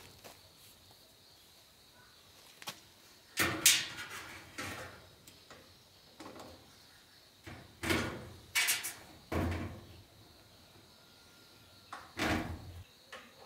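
Irregular knocks and clatters of hard objects, in a few short clusters with pauses between.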